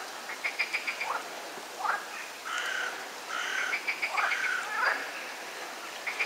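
Frogs croaking: rapid rattling call trains and short croaks, several overlapping, repeated throughout.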